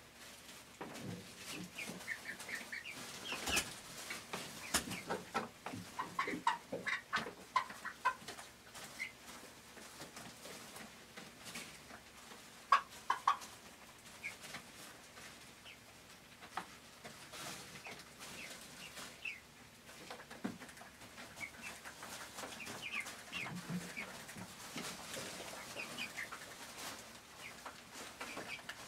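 Several young chickens clucking and giving short, soft calls, with scattered light taps as they peck feed from a plywood gravity feeder.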